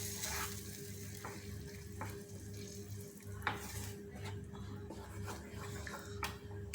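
A spoon stirring tomato puree into sautéed onion and capsicum in a pan, giving a faint sizzle and a scatter of clicks and scrapes from the spoon against the pan. A steady low hum runs underneath.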